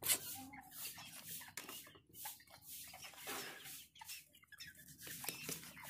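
A hen clucking quietly close by, over short scrapes and knocks of a large knife working a fish on a wooden board.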